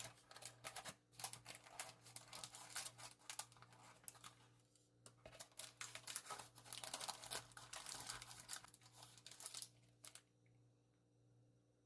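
Irregular crinkling and rustling of handled material, stopping abruptly about ten seconds in.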